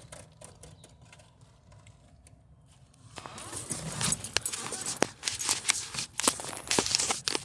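Hands working on car wiring and connectors: faint ticks at first, then from about three seconds in a busy run of clicks, taps and rustling as a wire is moved to another terminal.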